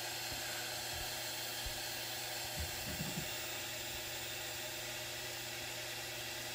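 Steady fan whir from a Bambu Lab X1 Carbon 3D printer, an even hiss over a low hum, with a couple of faint soft knocks about two and a half and three seconds in.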